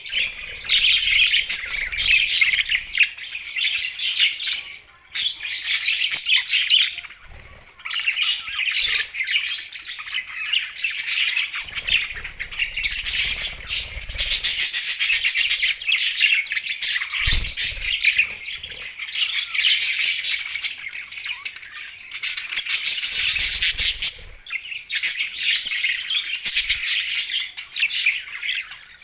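Budgerigars chattering and chirping, a dense run of fast high-pitched warbles and squawks from several birds at once, with brief lulls now and then.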